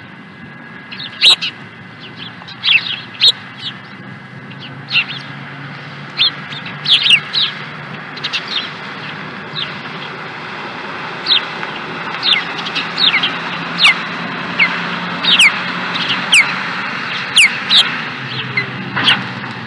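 Osprey calling: a series of loud, short, high-pitched chirps, each a quick downward-sliding whistle, repeated at irregular intervals over steady background noise.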